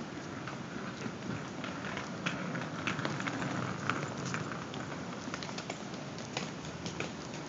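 Footsteps of hard-soled shoes on stone paving: irregular sharp clicks and scuffs over a steady background of street noise.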